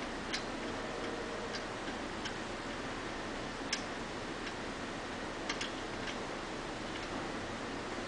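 Light, irregular metallic clicks and ticks, about eight in all, the loudest a little under four seconds in and two close together at about five and a half seconds: small steel parts of a bicycle pedal crank being handled as its set nut is fitted. A steady hiss lies under them.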